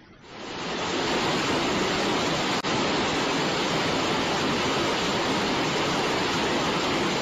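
Heavy downpour of rain: a loud, steady rush of water noise that swells in over the first second and holds, with a brief dropout about two and a half seconds in.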